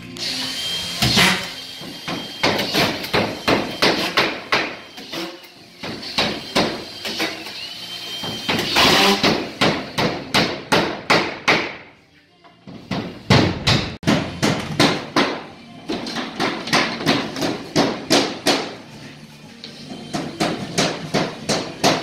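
Hammer driving nails through a drywall sheet into timber studs: a steady run of sharp strikes, about three a second, with a short pause about twelve seconds in.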